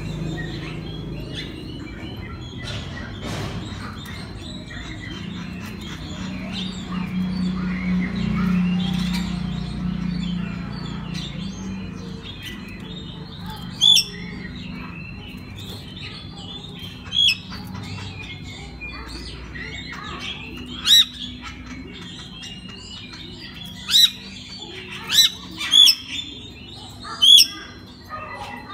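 Oriental magpie-robin singing: a stream of softer warbled notes, then from about halfway a series of loud, sharp whistled notes a second or few apart. A steady low hum runs under the first half.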